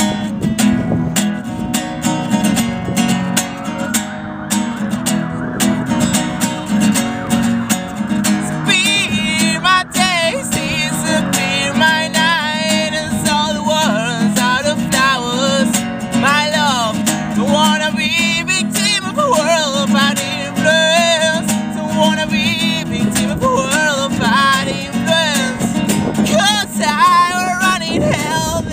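Acoustic guitar strummed in a steady rhythm, with a man singing over it from about nine seconds in.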